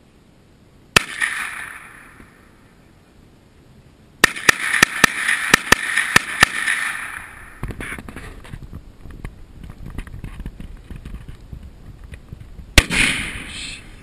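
JRC 9mm carbine gunshots: a single shot about a second in, then a rapid string of about ten shots a little over four seconds in, each ringing out. Near the end comes one single, louder shot from a scoped Remington 7mm Magnum hunting rifle.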